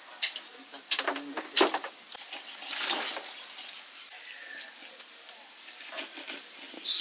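Large knife working on a rock snapper on a cutting table. It cuts off the tough spines and scrapes the skin, giving a few sharp clicks and taps near the start, a scraping rasp about three seconds in, and more light taps near the end.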